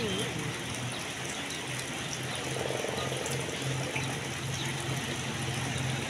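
Steady rain falling: an even hiss, with a low hum coming and going.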